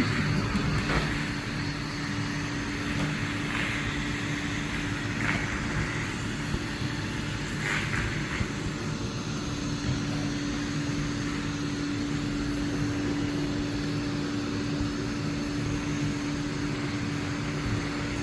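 Roomba robot vacuum running, its motor giving a steady whirring drone with a constant hum.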